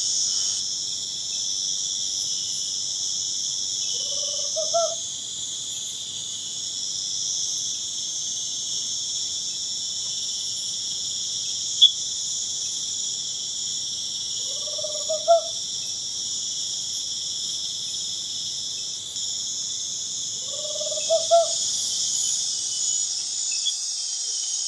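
Nighttime Amazon rainforest insect chorus: a steady, dense, shrill trilling of crickets and other insects. Over it, an animal gives a short rising call three times, several seconds apart.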